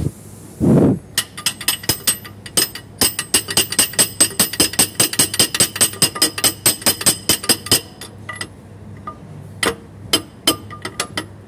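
Hammer tapping rapidly on metal at a truck's fan clutch, about five ringing strikes a second, working it loose; the taps thin out to a few scattered strikes after about eight seconds. A couple of heavy handling thumps come at the very start.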